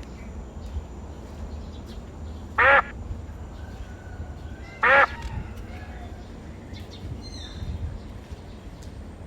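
A duck quacking twice, two short loud quacks about two seconds apart, over a steady low rumble of outdoor background noise.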